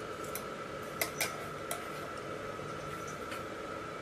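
Wire-mesh skimmer clinking against a ceramic bowl and a pot as potato sticks are scooped out and tipped in: several light clinks, the loudest two about a second in, over a steady hiss with a faint high hum.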